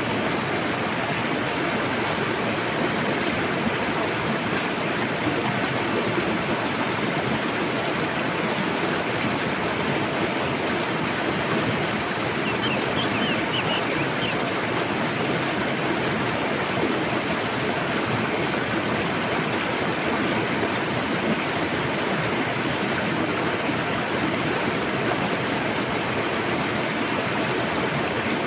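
A river rushing steadily, a dense even wash of water noise. A brief cluster of short high chirps sounds about halfway through.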